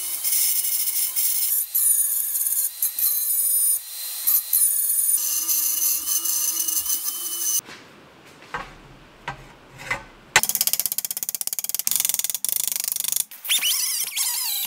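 Small handheld rotary grinding tool running with a high-pitched whine as it grinds weld out of the inside of a steel pedal bracket, stopping and starting briefly. About halfway there is a pause of a few seconds with light clicks, then grinding resumes with a rapid chatter.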